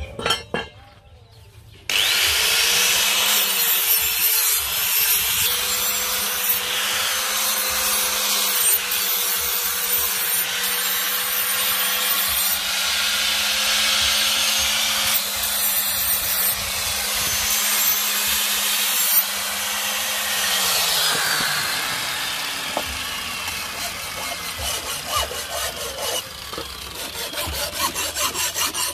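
Hikata angle grinder running steadily with a loud hiss as the edge of a steel meat cleaver is ground against its disc. About 21 seconds in, the motor is switched off and its hum winds down. Rapid rasping scrape strokes of sharpening follow.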